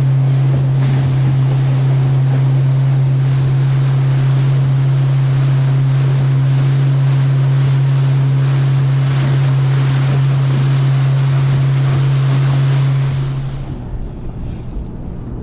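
A boat's motor running steadily under way, with a strong low hum, and wind and water rushing past. Near the end it drops back sharply, as if the throttle was eased off.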